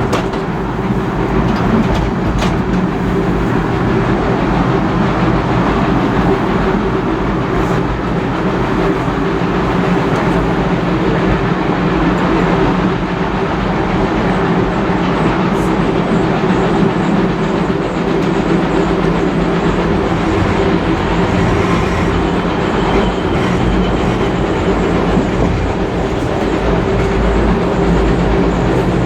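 Steady rumble and drone of a heritage passenger carriage rolling along the track, heard from inside the carriage, with an occasional click from the wheels.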